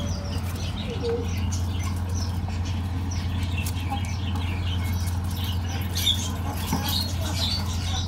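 Dry sunflower seeds in their shells rustling and clicking as several hamsters scurry and dig through them, over a steady low hum.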